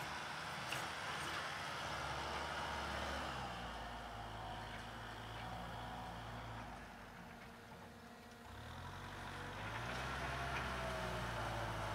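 Kubota M6040SU tractor's diesel engine running steadily; about eight seconds in its note sinks and quietens, then climbs back up.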